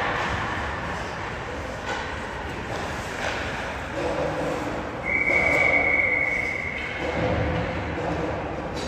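Hockey rink noise with voices, and a single long whistle blast of about two seconds starting around five seconds in.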